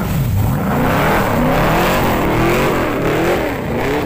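A car engine being revved in repeated quick blips, its pitch rising and falling about twice a second from about a second in.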